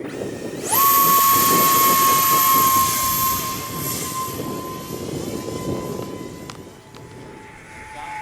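Twin 40 mm electric ducted fans of a 3D-printed RC Eurofighter Typhoon spooling up sharply to full throttle for takeoff about a second in: a high whine over a loud rushing hiss. After a few seconds the sound fades and the whine drops slightly in pitch as the jet flies away.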